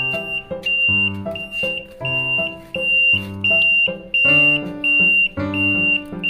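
Electronic alarm giving a high-pitched beep about every 0.7 seconds, with a melody of changing notes and bass under it.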